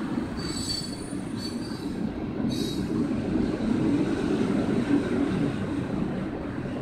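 Freight train of tank cars rolling past with a steady low rumble. Three short, high-pitched metal squeals from the wheels come within the first three seconds.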